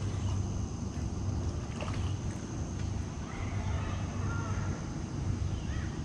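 Outdoor pond-side ambience at dusk: a steady low rumble, a continuous high-pitched insect drone, and a few short faint bird chirps.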